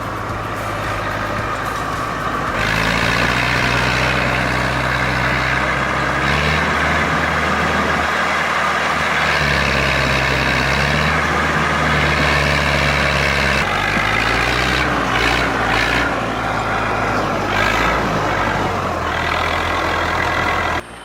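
Heavy vehicle engine running hard, its pitch shifting several times, then stopping suddenly near the end.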